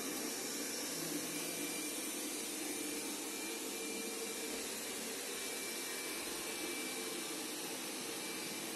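Roborock S6 MaxV robot vacuum running, its suction fan and brushes making a steady whirr with a faint high whine, as it drives across the floor while cleaning.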